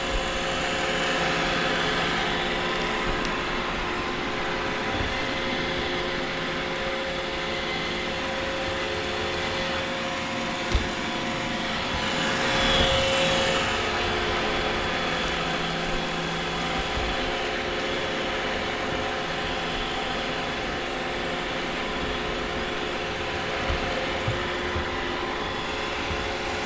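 iRobot Roomba robot vacuum running on a hardwood floor: a steady whir of motors and brushes with several held tones, a brief swell about halfway through, and a few light knocks as it bumps or rolls over things.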